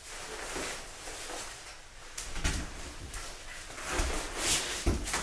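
Rustling with several dull knocks and thumps, the loudest about two and a half, four and five seconds in.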